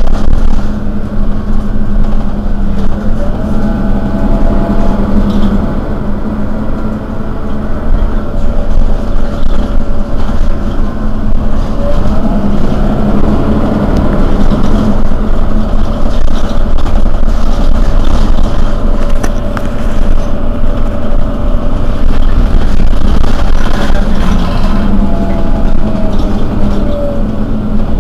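Mercedes-Benz Citaro city bus's rear-mounted engine idling steadily while the bus stands at a stop, a loud constant hum.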